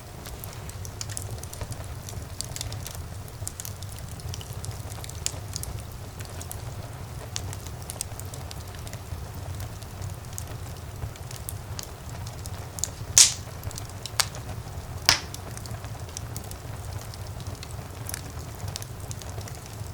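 Fire in a fireplace crackling, with frequent small sharp snaps over a steady low rumble. Two louder pops come a little past halfway, about two seconds apart.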